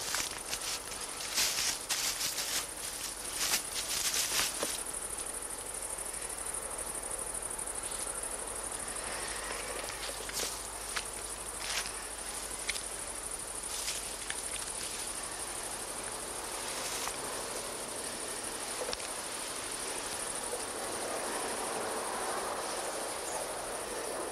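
Steady high chirring of field insects such as crickets or grasshoppers. For the first few seconds there is crackling and rustling of dry hay and twigs as someone climbs down onto a haystack, and a few scattered light cracks follow later.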